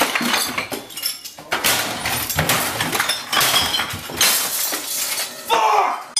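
A run of crashes and knocks with glass bottles clinking and breaking, as a man smashes things around a cluttered room.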